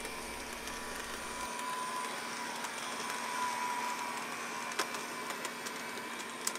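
A Bachmann HO scale model locomotive's motor and drivetrain running with a steady high whine that rises slightly in pitch a couple of seconds in, with a few light clicks. The audible whine marks a cheap, unrefined motor and drive system.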